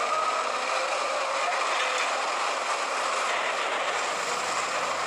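Large Caterpillar wheel loader working, its engine and machinery running steadily as it tips a bucket load of dark material into a dump truck.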